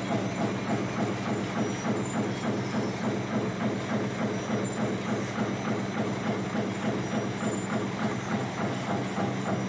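Razor wire manufacturing machinery running, with a fast, even clatter over a steady machine hum.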